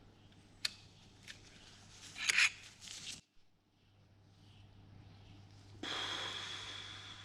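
A new spin-on oil filter being handled and screwed onto a diesel pump engine: a few sharp clicks and short scraping rubs, over a faint steady low hum. About six seconds in, a rushing hiss with a thin high tone swells and then fades.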